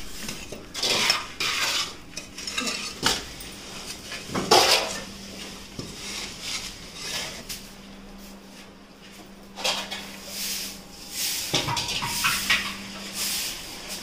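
Irregular metallic clinks and scrapes from metal tools, with a faint steady hum through the middle.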